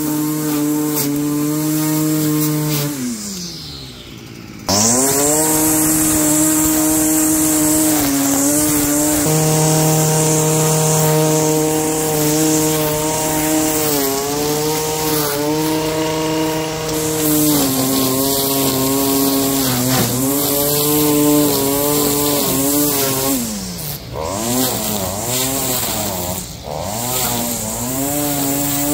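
Lawn mower engine running steadily under load. About three seconds in, its pitch falls and it goes quieter, then it is suddenly back at full speed. Later its pitch sags and recovers several times, most deeply near the end.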